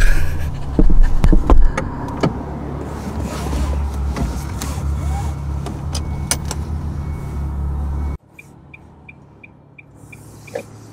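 Car cabin noise while driving: a steady low engine and road rumble with a few sharp knocks near the start. After about eight seconds it cuts off suddenly to a quieter background, with a quick series of short high beeps.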